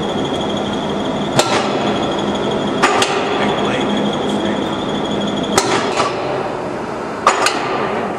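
Shop machinery running with a steady hum and a high whine, broken by six sharp metallic clanks at uneven intervals, two of them in quick pairs. The high whine fades out a little after halfway.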